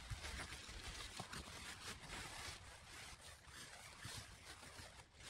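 Faint, continuous rustling of a tarp being pulled back and gathered up by hand.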